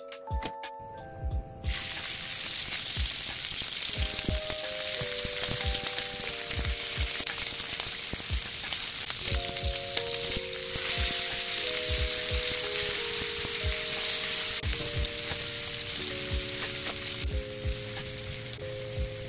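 Beef steak strips sizzling in oil in a small rectangular pan over high heat: a dense, steady sizzle that starts about two seconds in and eases off near the end.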